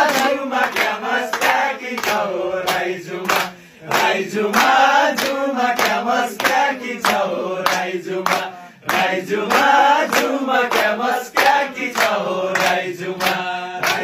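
A group of men singing a Nepali song together in chorus, with steady hand claps keeping the beat; the singing breaks off briefly twice.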